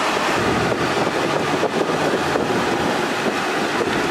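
Steady rushing noise inside a moving Mercedes G-Wagon's cabin: the air-conditioning blower running hard, mixed with road and tyre noise.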